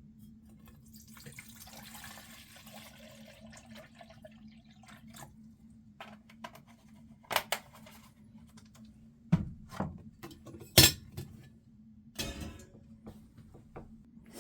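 Dishes and pans being handled: a soft rush like pouring or running water in the first few seconds, then several sharp clinks and knocks, the loudest about eleven seconds in, over a steady low hum.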